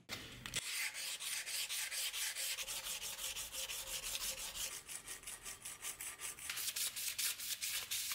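Steel drawknife blade clamped in a vise and sanded by hand with sandpaper, quick back-and-forth strokes about three to four a second.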